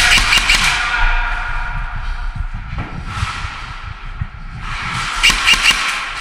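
Airsoft guns firing in rapid bursts, with a tight cluster of fast shots near the end, over a low steady hum.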